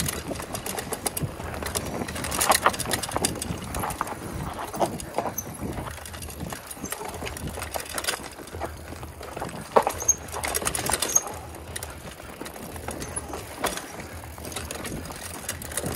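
Mountain bike riding fast down a steep, rough dirt trail: tyres rumbling over dirt and roots, with the bike clattering and rattling at every bump. The sharpest jolts come about two and a half seconds in and again around ten seconds.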